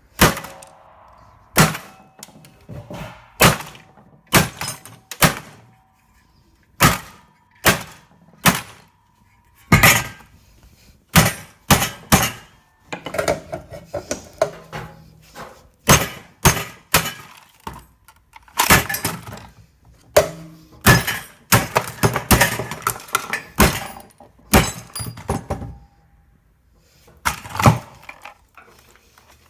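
A radio being struck again and again with hard blows: about thirty loud, irregular cracks and thuds of something breaking. The first few blows leave a short ringing tone, and the hits come thickest in the middle.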